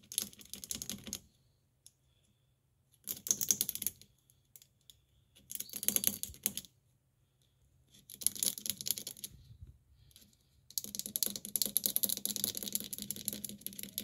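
Rapid scratching and clicking of a thin pick worked into the pins of a small plastic wiring-harness connector, scraping corrosion off its metal contacts. It comes in five short bouts with pauses between, the last the longest.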